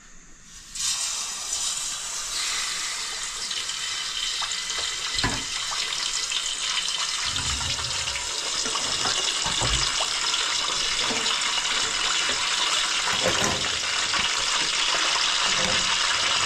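A whole fish deep-frying in a pot of hot oil: a steady hiss of sizzling that starts abruptly about a second in as the fish goes into the oil. A few low knocks come through it.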